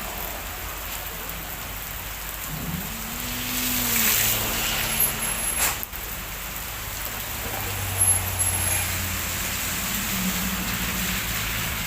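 Heavy rain falling steadily in front of a house, with a low engine hum underneath that shifts partway through.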